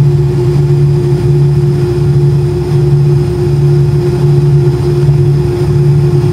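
Jet airliner's engines heard inside the cabin on the ground: a loud steady drone with a low hum that swells and fades slowly, a steady higher tone above it and a rumble beneath.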